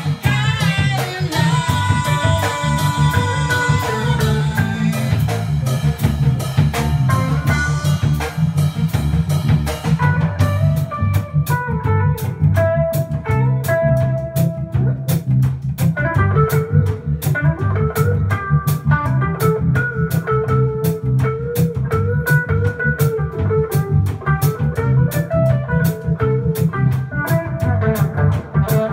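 Band music with no singing: guitar melody over drum kit and bass guitar.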